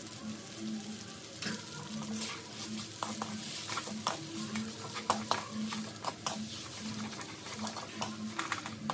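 Stir-frying noodles and mushrooms in a stainless steel wok: a wooden spatula scrapes and knocks against the metal pan in irregular clatters over a steady sizzle of frying.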